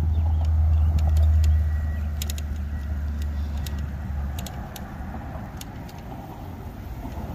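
A road vehicle passing close by: a low rumble that swells about a second in and fades away by about four and a half seconds, with a few light clicks and rattles over it.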